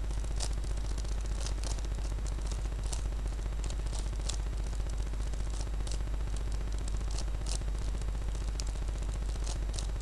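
Plastic Rubik's Cube layers being twisted quickly, giving many short, irregular clicks and clacks several times a second, over a steady low hum.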